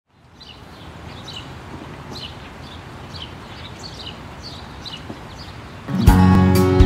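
A bird chirping repeatedly over a soft steady hiss of outdoor ambience. About six seconds in, a Marina 31 SM acoustic guitar starts playing plucked notes, much louder.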